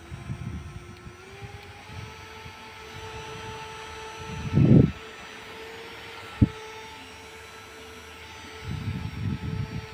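Small electric motor whining as it spins up and then runs steadily, with a loud handling thump about halfway through and a sharp click a couple of seconds later.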